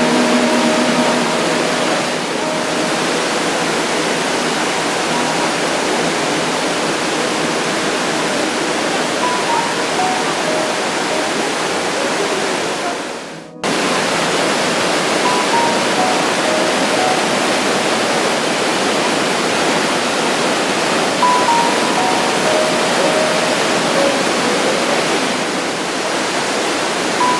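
Steady rush of a waterfall, with a few faint, sparse musical notes over it. About halfway through, the sound fades briefly and then cuts straight back in.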